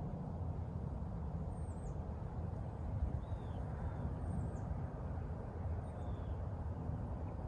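Woodland ambience: a steady low rumble with faint, short bird calls, a thin falling high chirp and a lower arched note, every second or two.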